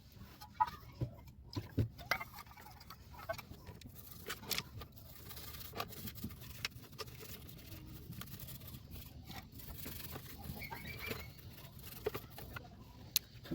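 Hand cleaning of a mixer grinder: scattered light clicks and taps from parts being handled, over faint rubbing.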